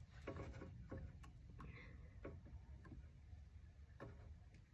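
Faint, irregular small clicks and ticks from a fishing reel and its line being handled.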